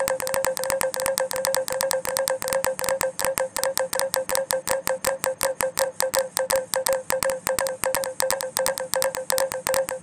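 Minimal electronic score made from a looping Snapchat recording layered against itself and shifted in and out of phase. A fast, even train of clicks, several a second and in places doubled, runs over a steady held tone.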